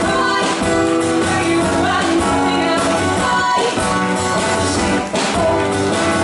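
Live song: singing over guitar accompaniment, with held notes and steady loud playing throughout.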